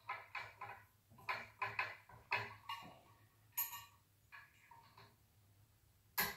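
Small metal screws and parts of a monitor-mount arm being fitted by hand: a run of short clicks and faint squeaks, with one sharper click just before the end.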